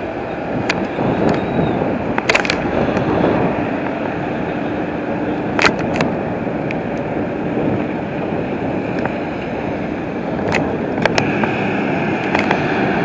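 London Fire Brigade fire-rescue boat running at speed out on the river, heard as a steady rushing engine and wake noise mixed with wind. A few sharp clicks and knocks come through at intervals.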